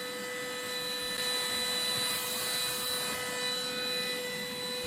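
Cordless stick vacuum cleaner running steadily on a hard floor, a motor whine over a rush of air.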